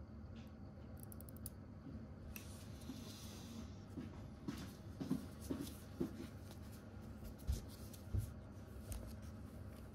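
Quiet handling noise from working on a disassembled camera lens: a soft rustle, then a run of light clicks and taps from metal tweezers and small parts of the aperture mechanism, with a few more taps near the end, over a faint steady hum.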